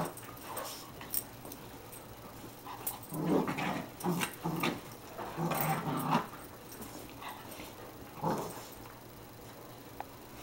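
Two dogs play-fighting, with short bursts of growling between about three and six seconds in and one more just past eight seconds.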